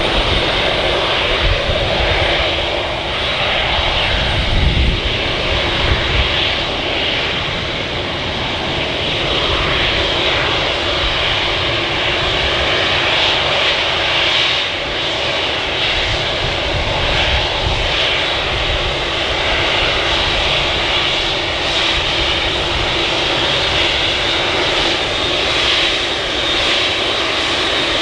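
Boeing 747-8 Freighter's four GEnx turbofan engines running loud and steady, with a high thin whine over the jet noise.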